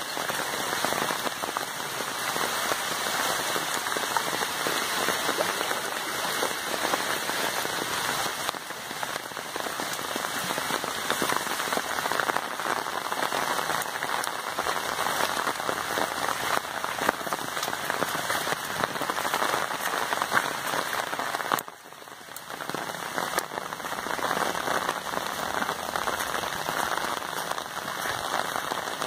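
Steady rain falling on foliage and floodwater, a dense even hiss of drops, dipping briefly about three-quarters of the way through.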